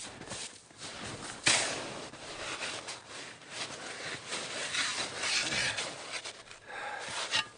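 Snow shovel crunching and scraping in packed snow, with a sharp knock about a second and a half in, as snow is dug and packed around the base of a canvas tent.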